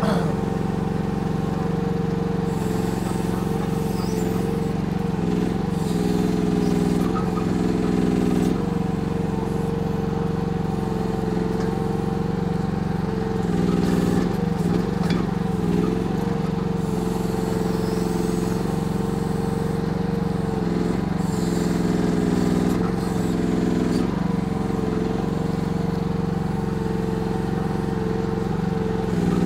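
Kymron YH14 mini excavator's gasoline engine running steadily at half throttle while the machine digs and dumps dirt. The engine note wavers briefly a few times.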